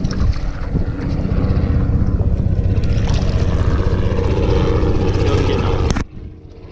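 Wind buffeting the microphone: a loud, steady low rumble that drops away suddenly near the end.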